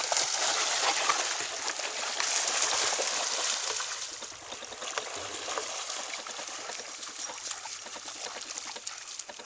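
Dogs splashing and wading through shallow pond water, water sloshing and dripping. The splashing is loudest for the first few seconds, then quieter.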